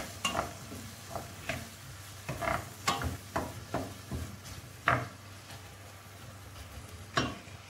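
Wooden spoon stirring diced vegetables frying in oil in a stainless steel pan, giving irregular scrapes and knocks against the pan about every half second to second. A light sizzle of the frying and a low steady hum run underneath.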